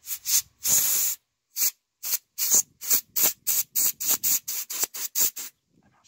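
Can of compressed air duster fired through its thin straw nozzle in a quick series of short hissing blasts, about three a second, with one longer blast about a second in.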